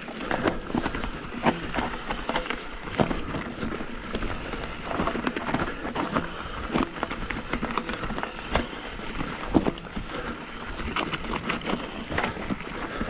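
Mountain bike riding down a dry, rocky trail: steady tyre noise over loose gravel and pine needles, with frequent sharp knocks and rattles as the bike hits stones, the hardest about two-thirds of the way through.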